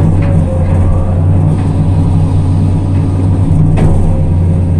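Excavator's diesel engine running steadily with a deep, even drone, heard from inside the operator's cab while the bucket works wet mud. Two short knocks come through, about a quarter-second in and near the end.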